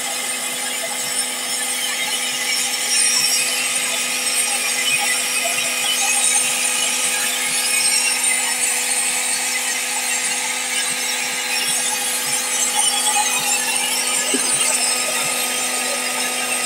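A small electric machine running steadily: a constant hum under an even whirring hiss, with no change throughout.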